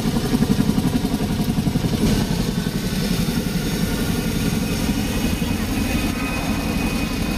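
CH-47 Chinook tandem-rotor helicopter running on the ground: a loud, steady rotor and turbine noise with a fast low chopping pulse. A thin, steady high whine joins about six seconds in.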